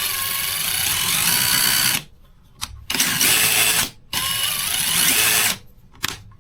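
Craftsman V20 brushless 1/4-inch impact driver motor running in three trigger pulls: one ending about two seconds in, a short one about three seconds in, and a longer one from about four seconds in.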